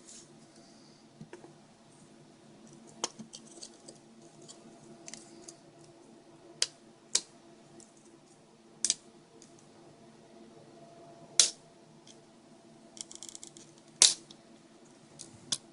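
Plastic parts of a Garmin GPS being handled and pressed together: scattered small clicks and taps, a few sharper snaps as the LCD assembly is seated in the housing, and a brief light rattle near the end.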